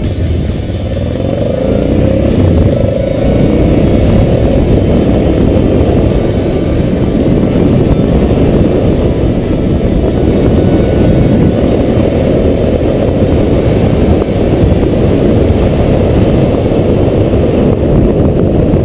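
Moving road vehicle heard from a camera mounted on it: steady engine noise mixed with rushing wind on the microphone. The engine note slides up and down in the first few seconds, then settles.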